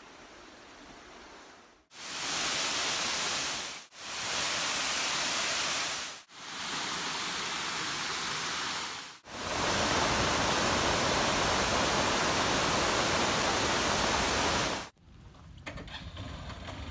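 Waterfall rushing, a steady wash of water noise heard in four back-to-back clips, each fading in and out. It starts about two seconds in after a faint hiss and cuts off shortly before the end, leaving a few faint clicks.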